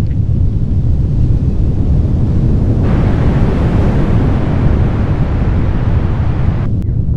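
Designed sound effect for an alien mountain forming: a loud, steady deep rumble. A rushing hiss joins it about three seconds in and cuts off abruptly near the end.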